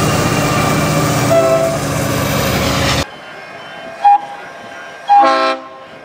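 A Pacific National NR class diesel locomotive passes close by with loud engine and rail noise, sounding a brief horn note about one and a half seconds in. The sound then cuts to a BL class diesel locomotive in the distance, giving a short toot and then a louder half-second horn blast.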